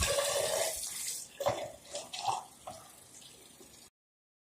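Water running from a bathroom tap and splashing as hair is rinsed under it, loudest at first and then in uneven surges that fade; the sound cuts off abruptly near the end.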